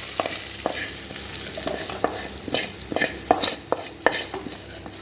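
A spoon stirring in a kadai of hot oil with sautéed shallots, garlic and green chillies: repeated scrapes and knocks against the pan, about two a second, over a steady frying sizzle.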